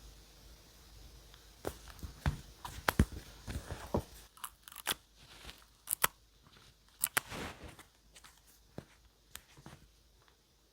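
Paper and stationery handled at a desk: irregular crisp crinkles, taps and clicks, busiest in the middle and thinning out near the end.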